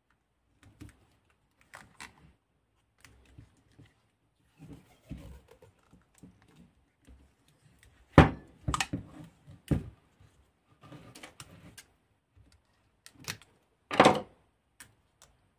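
A battery pack of 18650 cells being handled and taped on a wooden tabletop: scattered light clicks and tape rustles, a cluster of sharp knocks about halfway through as the pack is turned over and set down, and one more sharp sound near the end.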